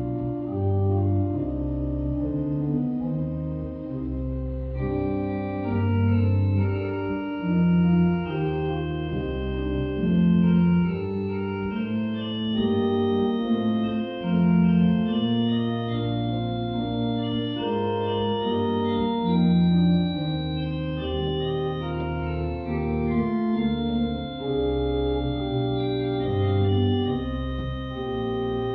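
Church pipe organ playing a slow, many-voiced piece: held chords that change every second or so over a moving bass line.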